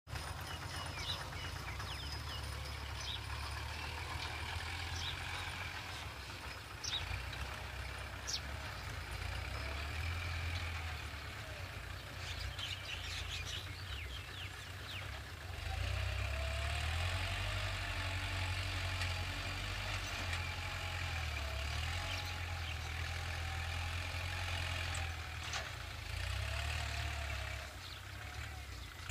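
Kubota L5018 diesel tractor working under load while disc-ploughing dry ground, a steady low engine rumble that grows louder about halfway through.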